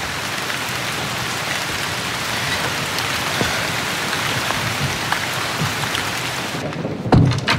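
Steady heavy rain, an even hiss, that cuts off abruptly near the end. A loud low thump comes just after, the loudest sound here.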